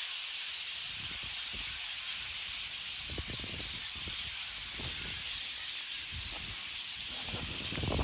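A large flock of birds in the trees, many calling at once in a dense, steady chattering chorus. Scattered low thumps sound underneath.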